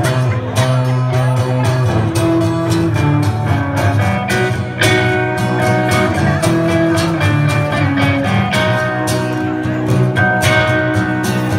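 Small live band playing outdoors: acoustic guitar strumming under held saxophone notes, with other band instruments filling in.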